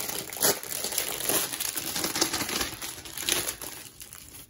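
Clear plastic wrapping crinkling in irregular crackles as a rolled canvas is pulled out of it. The crackling thins out near the end.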